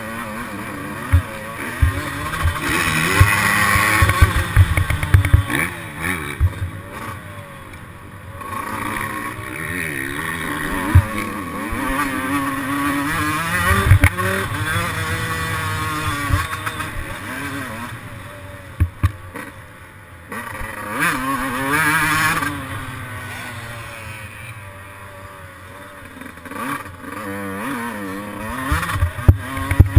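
Yamaha YZ125's single-cylinder two-stroke engine being ridden hard, revving up and dropping off again and again through the lap, with wind rush on the helmet-mounted microphone and frequent short thumps.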